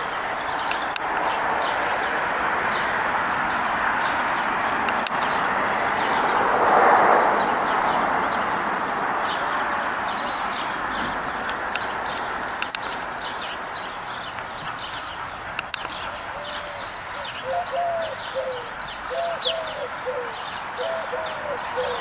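Small birds chirping with quick, high notes throughout, over a steady rushing noise that swells and fades, loudest about seven seconds in. From about sixteen seconds on, a bird gives a run of short, lower calls every half second or so.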